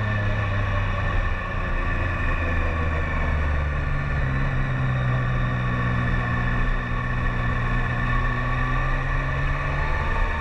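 BMW K1300S inline four-cylinder motorcycle engine running under way. Its pitch drops at first as the bike slows into a bend, holds at fairly steady revs, then starts to rise near the end as the rider picks up throttle.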